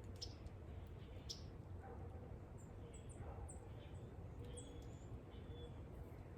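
Faint bird chirps at a feeder: a string of short, high calls, most of them in the second half, over a steady low background hum, with a couple of sharp ticks in the first second and a half.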